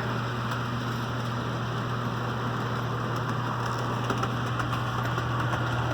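HO scale model train running on the layout: a steady low electric motor hum with an even rushing noise of wheels on the track.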